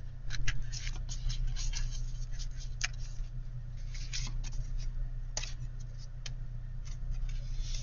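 Paper and cardstock rustling and scraping as the layered panels of a handmade sliding waterfall pocket are pulled along, in a series of short scrapes with a few sharp clicks, over a steady low hum.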